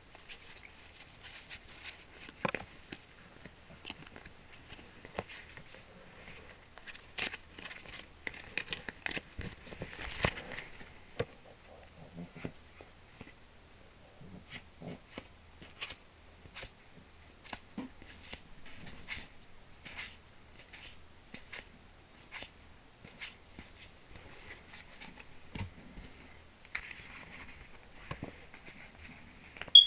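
Yu-Gi-Oh trading cards handled by hand and flipped through one after another: quick irregular clicks and slides of card against card, with a louder tap now and then.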